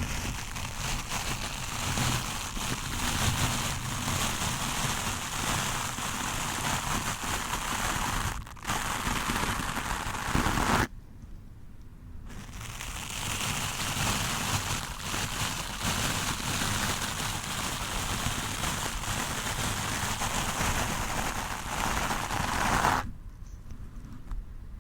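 Stiff-bristled wooden brush scraping hard and fast across a microphone: a dense, crackly scratching. It breaks off briefly about eleven seconds in and eases near the end.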